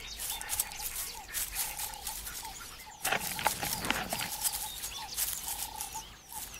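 Black-backed jackal pups squeaking and whining as they beg from an adult, with short high notes repeated about twice a second and a louder flurry of calls about three seconds in.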